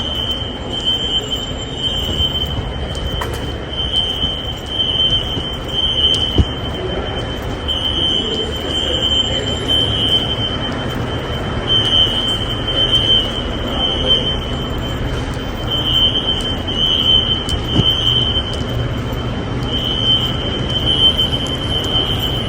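Building fire alarm horns sounding a high-pitched evacuation signal in groups of three pulses with a short pause between groups, over a low rumble. It is a general fire alarm set off by construction dust.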